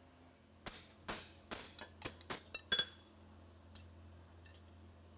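Farrier's hammer striking a steel horseshoe on the anvil: a quick run of about eight ringing metallic blows in a little over two seconds, then they stop about halfway through.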